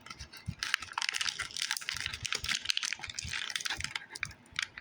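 Sticky crackle foam slime being squeezed and pulled in the fingers, giving a dense run of small crackling clicks. They start under a second in and thin out near the end.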